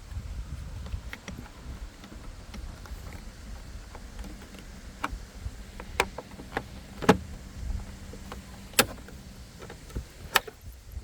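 Scattered sharp clicks and knocks, the loudest four a second or two apart in the second half, over a low rumble: a car's tail light assembly and its plastic trim cover being fitted back into place by hand.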